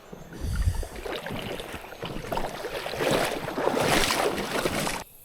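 Rustling and water noise of someone moving along and through a creek, with scattered knocks and a low thump near the start, cut off abruptly near the end.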